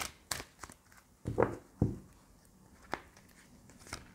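A tarot deck being handled in the hand: a few short, crisp snaps and taps of the cards as the deck is shuffled and squared.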